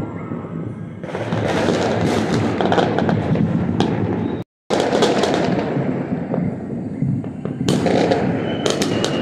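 Many fireworks and firecrackers going off across a city at once: a dense, continuous crackle of bangs and pops, louder from about a second in. The sound cuts out for an instant just before the middle, and a high steady whistle sounds near the end.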